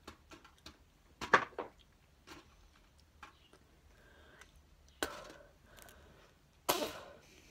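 A hard dog treat crunching between teeth: a few separate sharp crunches close to the microphone, the loudest about a second in, with quiet gaps between.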